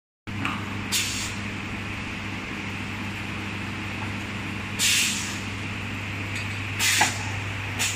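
Automatic 8-litre water filling line running with a steady hum, broken by four short hisses of air: one near the start, one halfway through and two near the end.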